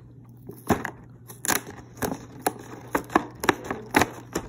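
Clear plastic blister packaging of a diecast toy-car multipack crackling as fingers press and pry at it to open it: a series of sharp cracks, roughly two a second.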